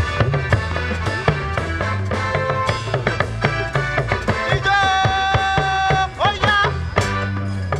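A band playing, with drums over a repeating bass line. A long steady note is held from about five seconds in, then breaks into a quick wavering run.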